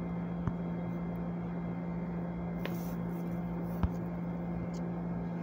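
Steady low hum of room background noise, with a few faint clicks, the most distinct about four seconds in.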